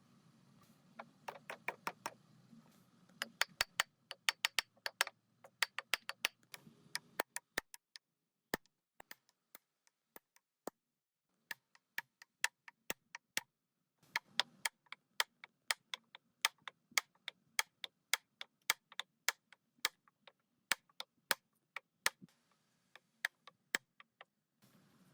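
Irregular sharp taps and clicks, several a second, with a sparser stretch in the middle, like small hard objects or tools knocking on a surface.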